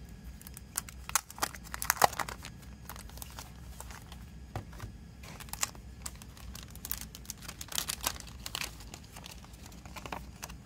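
Clear plastic shrink-wrap being torn and peeled off a CD, crinkling in irregular sharp crackles, loudest about two seconds in and again in a second flurry near the end.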